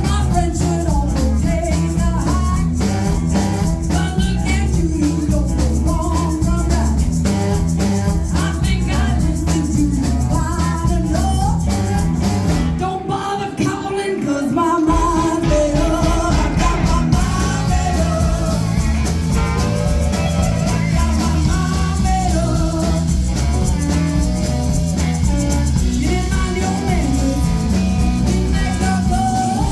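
Live band playing an up-tempo rock-and-roll stomper with drums, bass and guitar; the bass and drums drop out briefly about 13 seconds in, then come back in.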